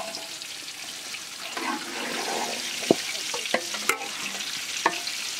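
Hands tossing and pressing marinated chicken pieces in a bowl of dry flour coating: a rustling, scraping sound with several sharp clicks against the bowl.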